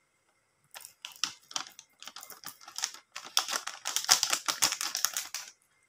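Plastic sachet of agar-agar powder crinkling and tapping as the powder is shaken out of it into a blender jar: a quick run of small clicks and rustles, thickening into a dense patter in the second half and stopping shortly before the end.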